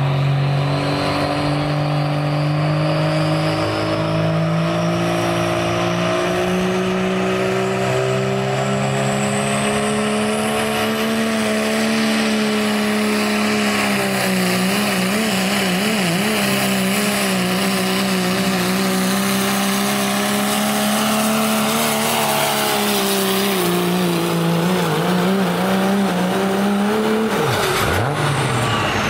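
Turbocharged Dodge Ram diesel pulling truck at full throttle dragging a weight-transfer sled, its engine note climbing slowly with a rising turbo whistle over the first ten seconds. The note holds high and wavers around the middle of the pull, sags as the sled bogs the truck down, and drops sharply near the end as the throttle comes off.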